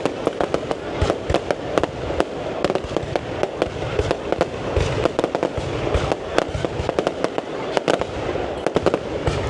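Aerial fireworks going off in a rapid, irregular string of sharp cracks and pops, several a second, with deeper booms mixed in.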